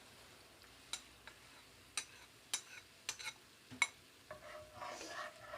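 Cooking utensils clicking and knocking against a pot: about six sharp taps spread over a few seconds, then a softer, wavering sound near the end.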